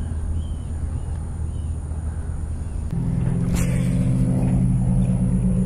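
Steady low drone of a running motor, which becomes louder and fuller about three seconds in, with a single sharp click shortly after.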